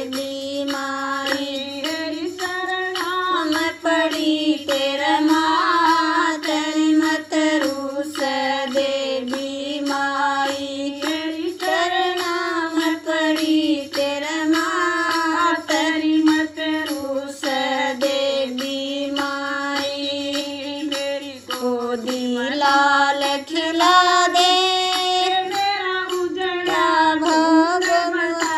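Singing of a Haryanvi Mata bhajan, a devotional song to the goddess: one melodic voice line in long, slightly wavering notes, broken into sung syllables.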